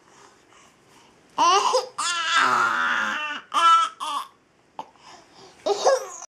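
High-pitched vocal cries in several bursts, the longest lasting over a second, with a short click about five seconds in.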